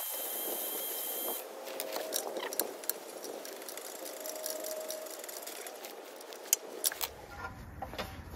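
Drill spinning a wire wheel brush against a spark plug to clean it, stopping about a second and a half in. Then scattered clicks and rattles of hands handling parts around a small engine.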